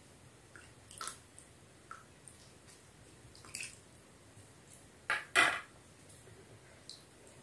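Light clinks and taps of a metal spoon against a plate and bowl while panipuri shells are filled, with two louder clatters about five seconds in as the spoon is set down on the plate.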